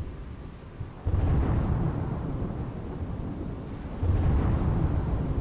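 Thunder rumbling over steady rain. The first deep roll comes in suddenly about a second in and fades, and a second roll swells about four seconds in.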